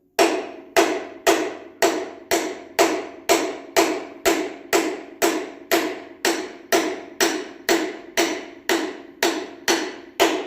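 Hammer striking a socket to drive a new sealed bearing onto a thickness planer shaft: steady strikes about two a second, each with a short metallic ring.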